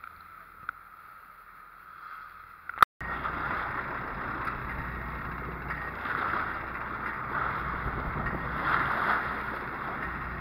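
Boat underway at sea: steady wind and water noise over a low engine rumble. A sharp click and a brief dropout come about three seconds in, after which the noise is louder.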